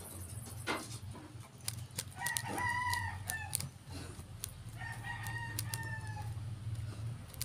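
An animal calls twice, each call a long pitched cry of about a second and a half, the two calls about a second apart. Small clicks are heard around the calls.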